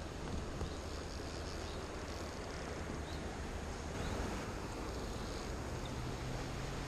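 Steady rushing of river water flowing over stones.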